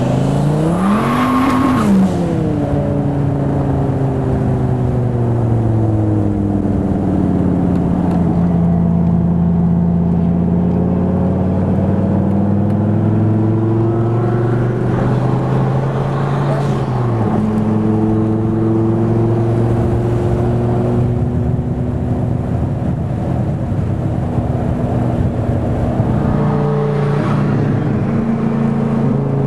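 Twin-turbo Dodge Viper GTS V10 engine heard from inside the cabin. The revs climb quickly and fall back in the first couple of seconds, with a brief high whine. It then runs at cruise, its pitch rising and falling slowly with the throttle and dropping suddenly about halfway through.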